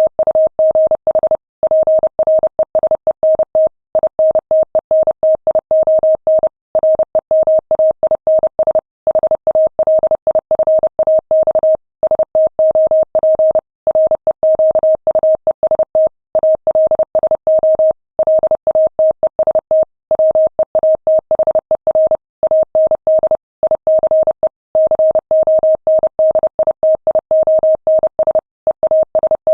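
Morse code sent at 30 words per minute: a single steady tone of about 600 Hz keyed rapidly on and off in dots and dashes, with slightly longer gaps between words.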